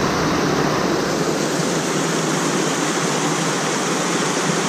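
Rushing water of a small stream cascade, a steady even hiss.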